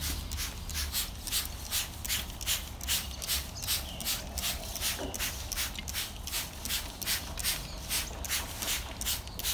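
Hand trigger spray bottle squirting liquid paint stripper onto carved timber in quick repeated pumps, a short hiss about three times a second, kept up steadily.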